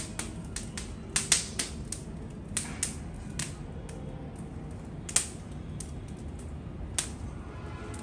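Open fire in a barbecue grill crackling, with irregular sharp pops one or two a second over a low steady rumble.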